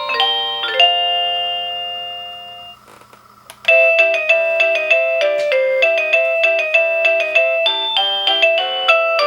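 Avantek D-3B wireless doorbell receiver playing its electronic chime melodies: one tune's notes ring out and fade away about three seconds in, and after a short pause with a click a new, quicker tune of repeated notes begins.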